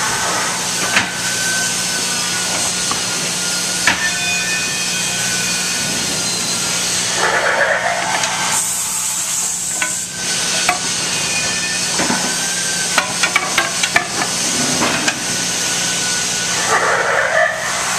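Steady factory noise with a low hum and hiss, broken by sharp wooden knocks and clatters as wooden slats are laid onto a swing on an assembly jig, with a quick run of knocks about three-quarters of the way through.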